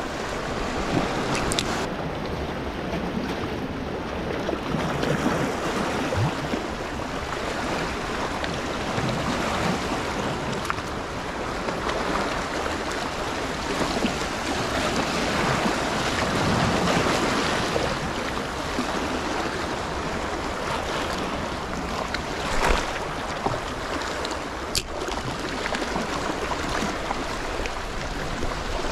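Small sea waves washing and lapping over shoreline rocks, the surf swelling and easing in turn. One sharp knock about three-quarters of the way through.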